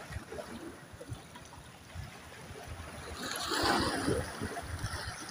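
Small sea waves lapping and washing against shoreline rocks, swelling to a louder wash a little past halfway.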